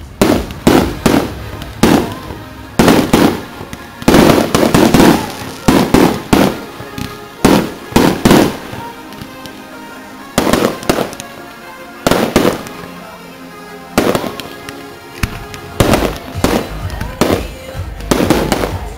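Aerial fireworks launching and bursting in a rapid series of sharp bangs, mostly about a second apart with some quick clusters, pausing briefly past the middle.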